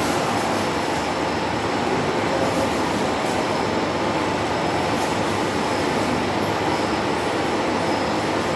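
Hydraulic test pump running steadily, driving the blue hydraulic cylinder's chrome rod slowly out under pressure, with a constant even mechanical noise and a faint thin whine.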